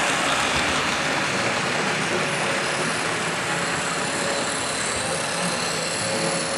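HO-scale model trains running steadily on the layout: the whir of the locomotives' electric motors and the rumble of log wagons and cabooses rolling along the track.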